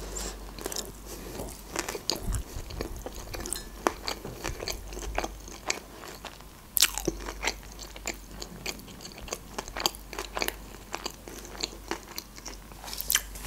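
Close-miked chewing of a large nori-wrapped sushi roll with the mouth closed: irregular soft wet clicks and crunches, one louder about halfway through.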